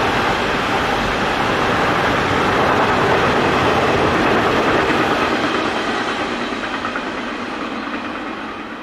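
Intermodal freight train of tank containers and swap bodies rolling past, a steady rolling noise of wagon wheels on the rails. The noise fades over the last couple of seconds as the end of the train goes by.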